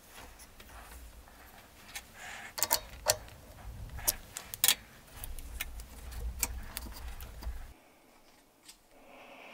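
Sharp metallic clicks and knocks of a lathe's four-jaw chuck being tightened with a chuck key on a wooden hammer handle, a handful in quick succession. A low rumble runs underneath and stops near the end.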